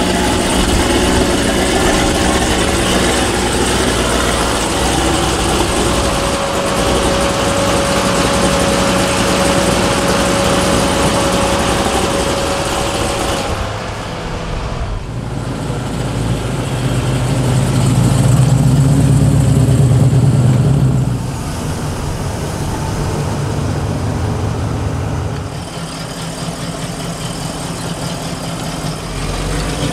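American V8 muscle-car engines idling and moving at low speed. A thin steady whine sits over the engine sound in the first half, until the sound changes abruptly about 14 seconds in. A louder stretch of low engine sound follows from about 17 to 21 seconds.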